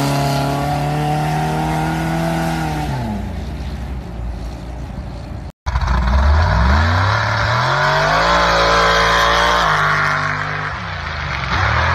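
Off-road vehicle engine held at high revs, then easing off about three seconds in. After a brief cut, an engine revs up again, holds, and drops back near the end.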